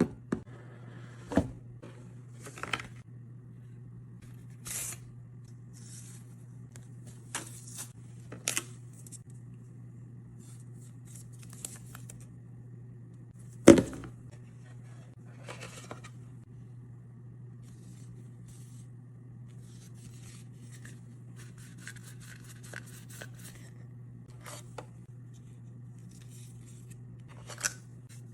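Smartphone box and packaging handled during unboxing: scattered clicks, scrapes and tearing, with a sharp knock about halfway through and a spell of crinkly rustling a little later, over a steady low hum.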